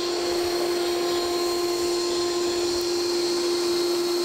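Propane farrier's forge running: a steady rushing roar of the burner with a constant hum-like tone through it.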